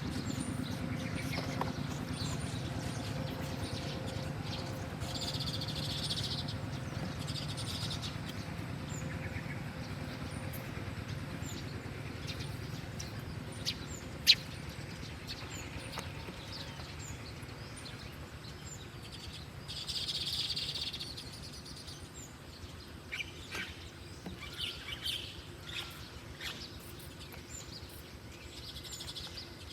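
Wild birds chirping in short scattered bursts, with one sharp click about a quarter of a minute in, over a steady low background hum.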